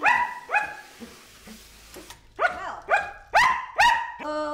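Samoyed barking loudly: two barks, a pause of about two seconds, then four more barks about half a second apart.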